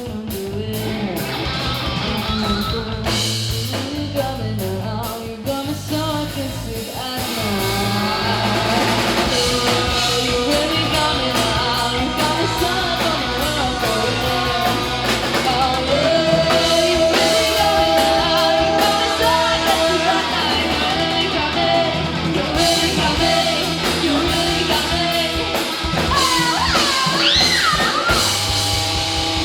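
Live rock band playing, with electric guitar, bass, drum kit and a singer. Near the end a high note slides and wavers.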